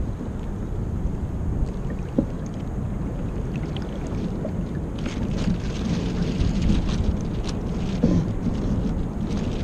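Water splashing and lapping against the hull of a Kyosho Seawind RC sailboat under sail, with wind buffeting the deck-mounted camera's microphone as a steady low rumble. The splashes come thicker about halfway through.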